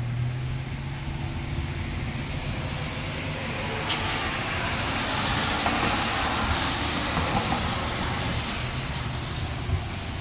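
Road traffic: a vehicle passing by, its hiss swelling about four seconds in and fading away again, over a steady low hum.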